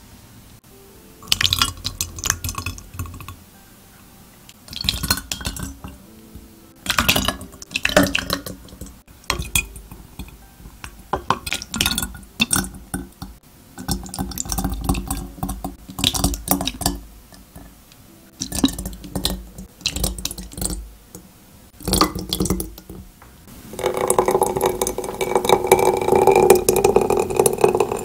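Glass milk bottles clinking and knocking as mashed strawberries are put into them, a sharp clink every second or two. Near the end this gives way to a steady pouring sound with a ringing tone as fresh cream runs into a bottle.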